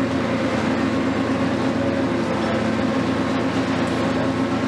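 Hitachi 470 excavator's diesel engine running steadily, an even hum with no knocks or changes.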